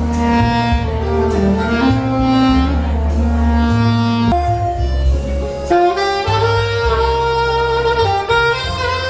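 Alto saxophone playing a melody of held notes live, over a backing track with a bass line that changes note every second or so.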